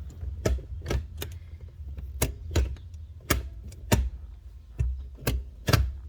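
Sharp plastic clicks and knocks, about a dozen at irregular intervals, as a console trim piece in a Jeep Cherokee XJ is pushed and snapped into place. A low steady hum runs underneath.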